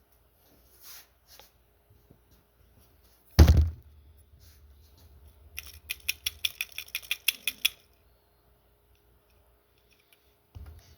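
Hand work on a motorcycle carburetor. There is one loud knock about a third of the way in, then a quick run of about a dozen sharp clicks, roughly six a second, lasting about two seconds.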